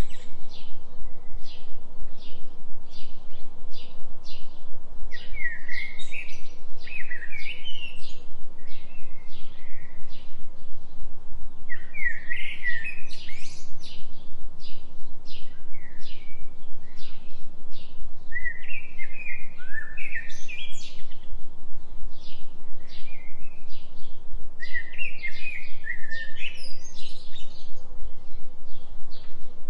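Forest birdsong: a songbird sings a short warbling phrase roughly every six or seven seconds over a steady run of short chirps about twice a second, with a steady low tone underneath from the binaural track.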